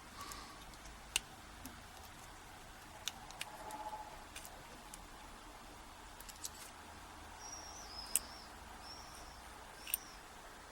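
A few faint, scattered clicks of a metal pick and tools working at a euro lock cylinder. A few short high bird chirps sound faintly in the background in the second half.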